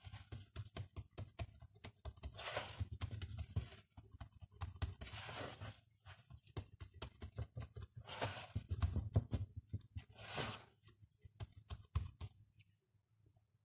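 A hand pressing and smoothing soft yeast dough in an oiled frying pan: soft rustling strokes and scattered light clicks, faint throughout and dying away near the end.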